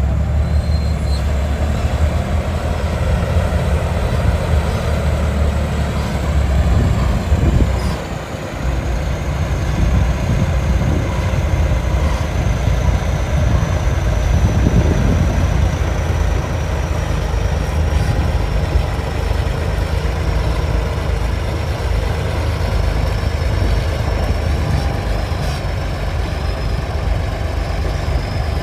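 XCMG TY230 crawler bulldozer's diesel engine running steadily. A thin high whine sits above the engine sound and slowly drops in pitch, and the engine sound dips briefly about eight seconds in.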